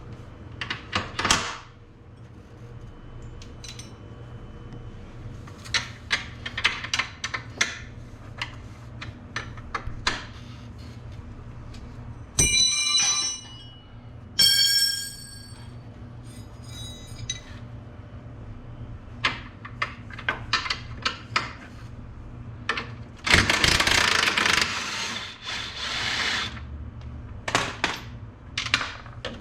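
Hand tools working on steel parts while a shock bolt is being removed: scattered clicks and clanks of a wrench, with two bright ringing metal clinks near the middle and a longer harsh rattling stretch about three-quarters of the way through.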